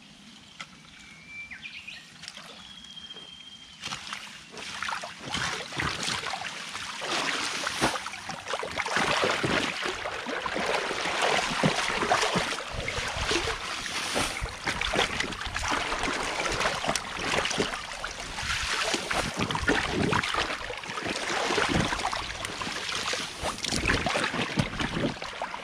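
Water splashing and sloshing as a mesh scoop net on a long pole is churned and dragged through a shallow concrete irrigation ditch, raking out fallen leaves and mud. It starts about four seconds in and goes on in irregular, choppy strokes.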